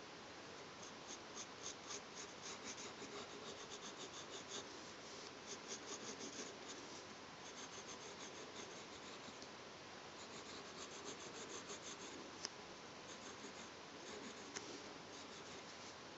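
Graphite pencil scratching on drawing paper in quick short strokes, three or four a second, in two runs with a lull between them. Two sharp clicks come near the end.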